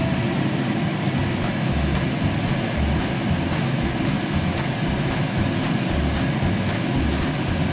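Steady low rumbling noise with a few light clicks of a wooden spatula against a frying pan as sliced bamboo shoots are stirred.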